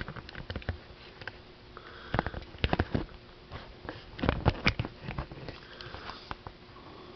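Crosman 2200 Magnum multi-pump pneumatic air rifle being handled and pumped before a shot, with two groups of plastic-and-metal clacks and short airy whooshes about two seconds apart and scattered small clicks between them.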